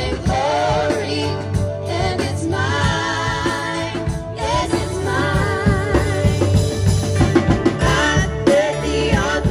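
Live band performing a song: girls singing into microphones over bass guitar, a Nord Electro keyboard and a drum kit, with the drums striking steadily in the second half.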